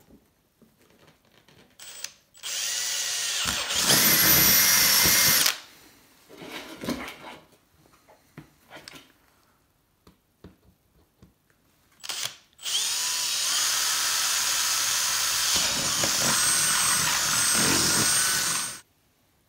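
Cordless drill boring into the wall of a plastic ventilation-duct tube, in two runs: one of about three seconds starting about two seconds in, getting louder partway through, and a longer one of about six seconds starting about twelve seconds in. Each run is a steady motor whine that stops abruptly when the trigger is released, with light handling clicks between them.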